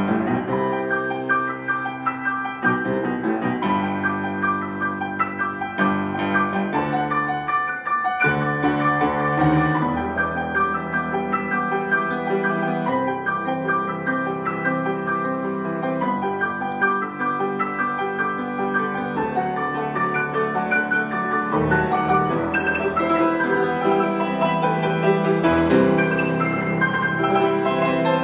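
Two pianists playing a piano duet: a continuous flow of notes and chords that swells a little near the end.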